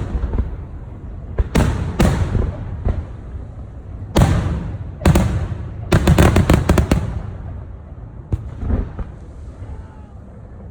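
Aerial fireworks shells bursting: single booms about 1.5 and 2 seconds in, two more around 4 and 5 seconds, then a quick volley of cracks around 6 to 7 seconds, ending with a couple of fainter pops near 9 seconds. Each burst trails off in a ringing echo.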